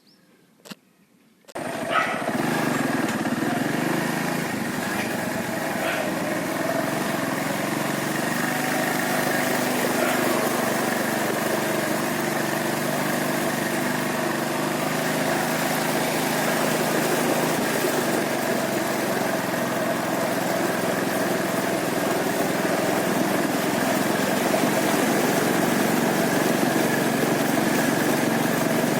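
A Hero Honda Joy's small engine running steadily at a constant pitch, coming in sharply about a second and a half in after a short quiet and a single click.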